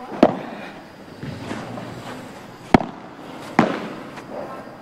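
Padel ball being struck by rackets and bouncing during a rally: three sharp pops with a short ringing tail, the loudest a little under three seconds in and another under a second later.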